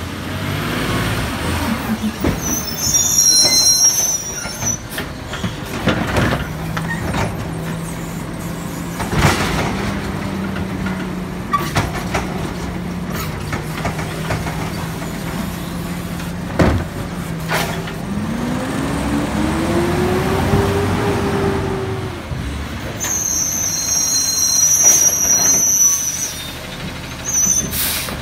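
Labrie Automizer automated side-loader on a Peterbilt 520 garbage truck cycling its arm through a cart pickup: a steady hydraulic hum with the engine held at raised revs, sharp knocks and bangs as the cart is lifted and dumped, then the engine revs rise and fall off. Sharp air hisses come near the start and again a few seconds before the end.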